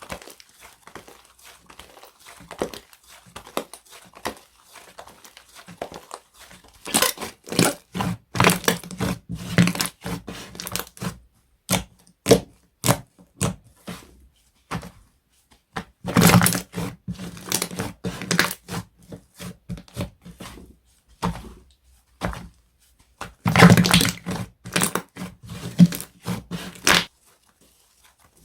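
Slime being squished and pressed by hand, giving crackling, popping clicks. The sound is soft for the first few seconds, then comes in three louder bouts.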